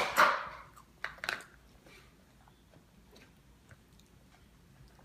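A toddler eating a meal: two short, louder eating or utensil sounds in the first second and a half, then faint scattered clicks of chewing.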